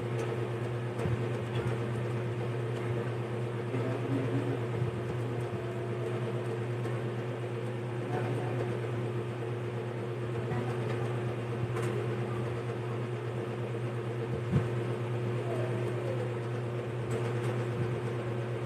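Steady low machine hum, like a fan or other appliance running in a small room, with a few faint clicks and a short thump about fourteen seconds in.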